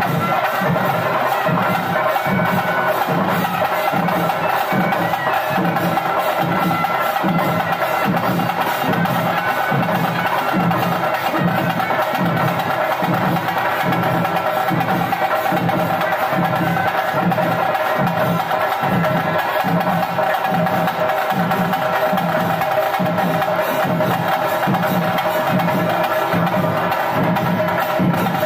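Loud festival percussion music: drums keep a steady, even beat under a sustained, held pitched tone.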